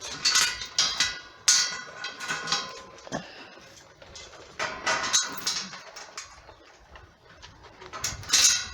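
Metal chain jangling and clinking against a steel gate as it is fastened with a clip, in three bouts of rattling, the last near the end.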